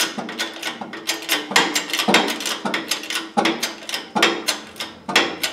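Repeated sharp metal clicks and knocks, several a second and unevenly spaced, as metal press pieces are fitted by hand against a GM upper control arm at its bushing bore in a shop press.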